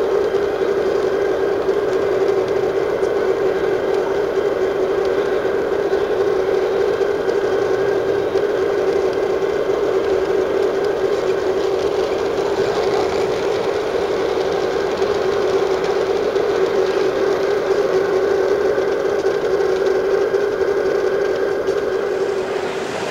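G-scale model trains running on the layout, giving a steady droning hum that holds one pitch and stops just before the end.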